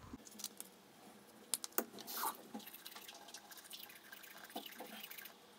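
Toothbrush scrubbing teeth in faint, irregular scratchy strokes with small clicks, and water dripping at a bathroom sink.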